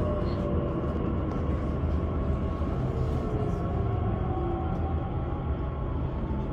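Talent 2 (class 442) electric multiple unit running, heard from inside the passenger car: a steady rumble of wheels on track, with faint electric whine tones gliding down in pitch.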